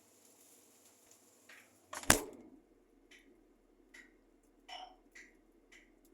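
A sharp knock about two seconds in, with a softer one just before it, followed by a few light clicks and taps spaced about half a second to a second apart.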